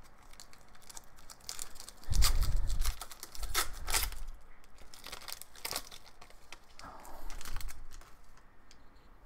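Foil trading-card pack wrapper being torn open and crinkled in several short bursts, with a few dull handling bumps.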